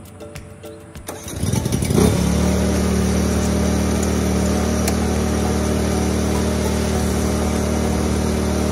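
Skag 52-inch zero-turn mower's engine starting up about a second in, rising for a moment as it catches, then running steadily.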